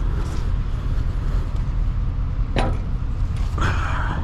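Semi truck's diesel engine running steadily with a low rumble, with a sharp click about two and a half seconds in and a short hiss near the end.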